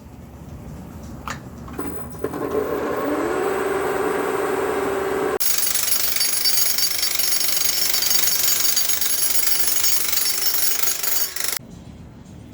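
A heavy power tool working on the basement's concrete floor. Its motor runs up with a steady hum rising slightly in pitch from about two seconds in. About five seconds in it breaks into a louder, harsher grinding noise, which stops abruptly near the end.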